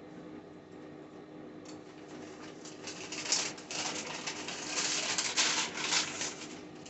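Paper takeout bags rustling and crinkling as they are handled and opened, in a run of crackly bursts that begins a few seconds in and is loudest in the second half.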